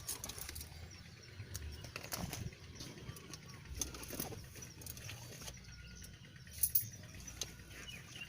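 Quiet outdoor ambience with scattered short clicks and knocks, the loudest a quick pair about two-thirds of the way through, and faint bird chirps in the background.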